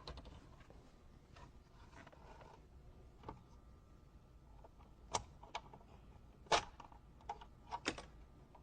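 Faint, scattered sharp clicks and light knocks of plastic interior trim: a Mercedes W211 ashtray being unclipped by hand and its electrical connector unplugged. The clicks come mostly in the second half.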